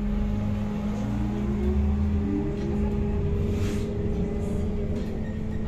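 MAZ-103T trolleybus running, heard from inside the passenger cabin: the electric traction drive whines, rising in pitch over the first few seconds as the trolleybus gathers speed, then holding steady. Under it there is a steady hum and road rumble.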